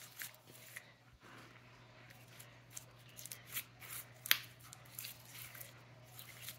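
Hands squishing and kneading slime, making scattered small clicks and pops, one louder pop about four seconds in, over a faint steady low hum.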